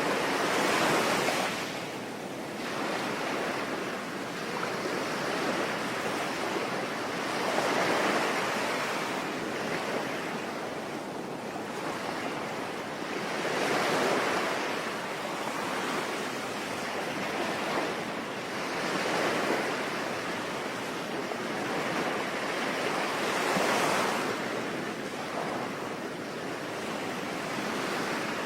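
Ocean waves washing in, swelling and falling back about every five or six seconds, over a steady hiss of falling rain.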